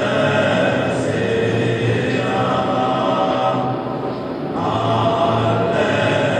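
Background music: men's voices chanting in sustained, slowly changing notes, Gregorian-style antiphon.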